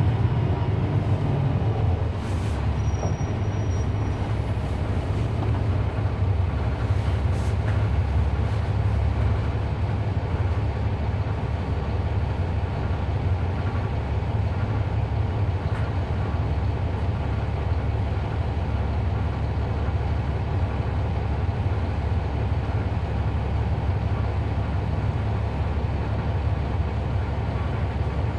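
Cummins ISL9 inline-six diesel of a 2011 NABI 40-foot transit bus running steadily, heard from inside the bus as a deep, even rumble. A few light clicks sound in the first several seconds.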